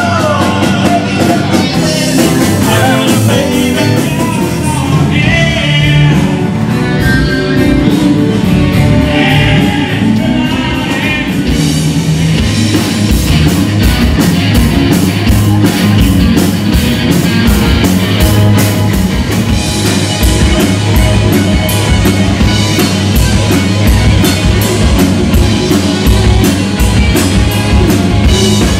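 Live rock band playing loud: electric guitars, bass, drum kit and singing. About halfway through it gives way to a different song driven by a steady, hard drum beat.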